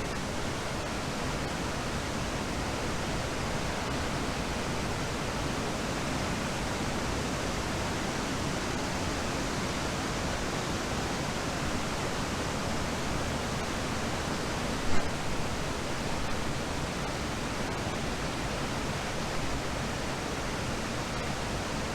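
Waterfall in flood, swollen by hurricane rainfall, giving a steady, even rush of falling water. About two-thirds of the way through there is one brief bump.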